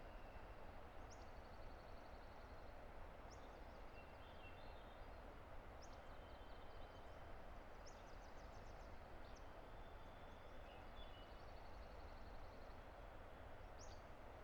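Faint, steady rush of a distant river, with songbirds giving short high downslurred notes and trills every second or two above it.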